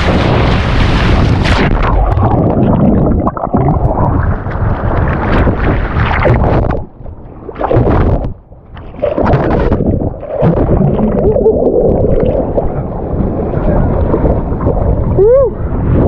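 Surf and water splashing with heavy wind buffeting the microphone; the sound drops away sharply twice for a moment in the middle. A short rising-then-falling pitched cry near the end.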